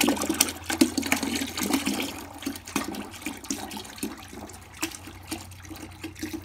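A stream of murky water and oil pouring from the oil pan drain hole of a Dodge 230 flathead six into a partly filled plastic bucket, splashing steadily and easing slightly after a couple of seconds. The owner takes the water for rain that filled the engine while it sat for years with no spark plugs.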